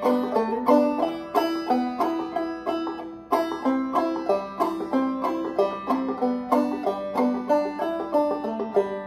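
Gold Tone five-string banjo played clawhammer style, slowly: a steady run of plucked notes and strums, about three a second, over a ringing drone note.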